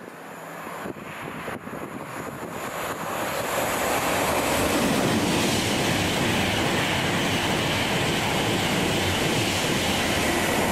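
A train approaching and running past on the rails: its noise builds over about four seconds, then holds steady and loud.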